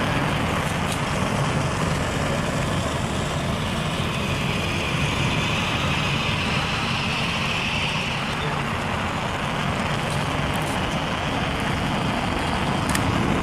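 Homemade soda-can jet engine running, a steady rushing noise that swells a little in its hiss about a third of the way in, with a few faint clicks.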